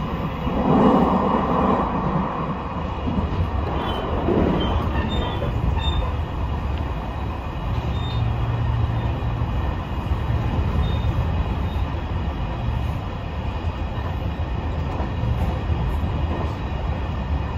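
JR East E721 series electric train running along the line, heard from inside the car: a steady rumble of wheels on rail with faint thin high tones running through it. The running noise swells louder in the first two seconds and again around four seconds in.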